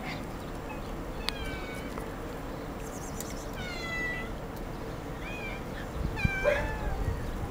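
Cat meowing: about four high-pitched meows, the longest a few seconds in, with a steady faint hum underneath.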